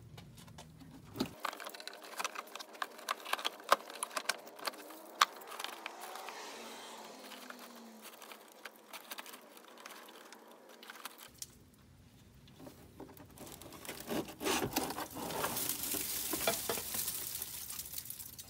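Plastic evaporator case and core of a second-generation Chevrolet S10 being worked loose and pulled out by hand. Scattered sharp plastic clicks and knocks come first, then a rustling scrape near the end as dried leaves spill out of the box.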